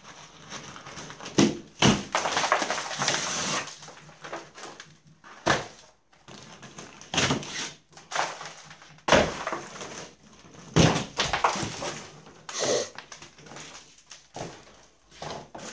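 Plasterboard being ripped off a ceiling by hand: irregular cracking and crumbling of gypsum board, with sharp knocks and thuds as pieces break away and drop.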